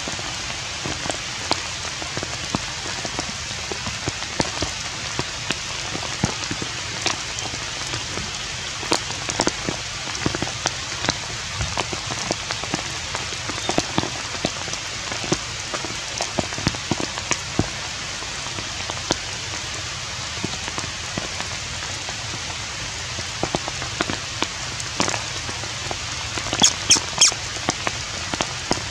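Steady rain: an even hiss with scattered sharp drop ticks, and a quick cluster of louder ticks near the end.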